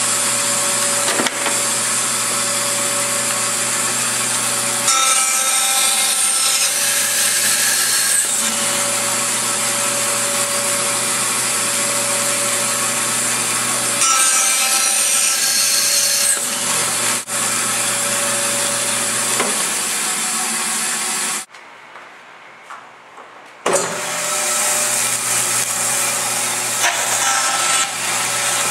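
Power saw running steadily while wood is fed through it, with two louder cutting passes of a few seconds each. A little past two-thirds of the way through the sound drops away for about two seconds, then the saw runs on.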